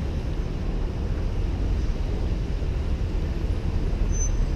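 Steady low rumble of street traffic mixed with wind buffeting the microphone on a moving bicycle.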